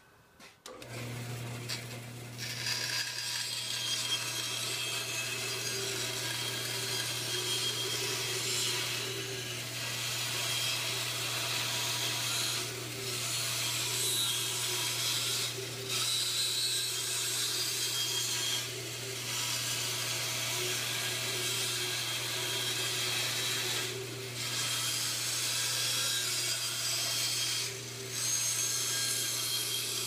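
Band saw running with a steady motor hum while its blade cuts a curve through a round wooden disc. The cutting noise dips briefly every few seconds as the piece is fed and turned.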